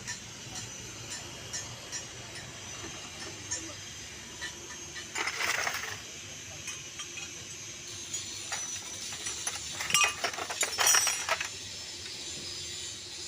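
Metal tools and engine parts clinking and tapping as they are handled, with two louder clattering bursts, one about five seconds in and one near ten to eleven seconds.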